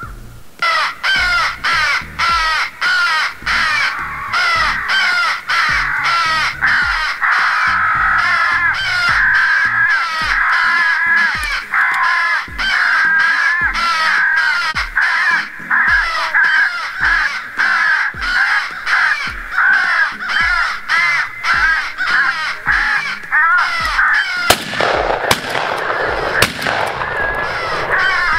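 Crow calls, many caws overlapping in a loud, continuous, rhythmic chorus. A short burst of noise cuts in about three-quarters of the way through.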